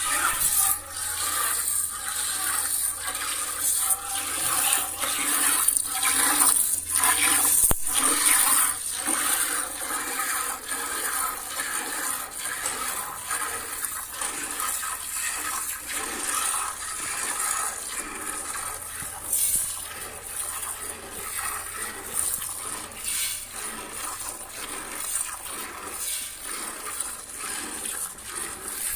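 Cow being milked by hand: rhythmic squirts of milk hissing into a pail.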